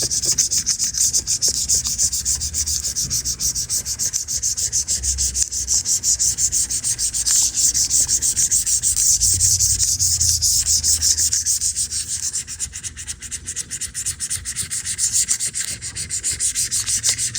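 A razor blade scraping caked grime off an iPad's housing in rapid, closely spaced strokes. It eases off for a few seconds past the middle, then picks up again.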